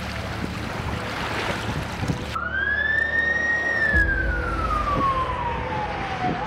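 A loud rushing noise that cuts off abruptly about two seconds in, then an emergency vehicle's siren wailing: one long sweep that rises, falls slowly, and starts to rise again near the end, over a low vehicle rumble.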